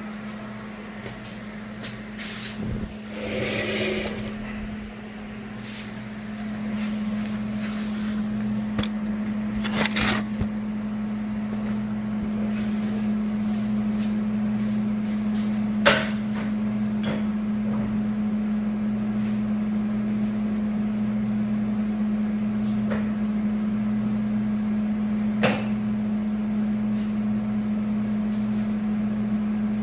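A steady machine hum that grows louder about six seconds in, broken by a few sharp metal clanks and knocks.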